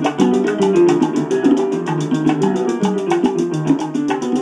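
Salsa music playing from a vinyl record on a turntable, with a busy percussion section and a fast, even high tick over pitched instruments.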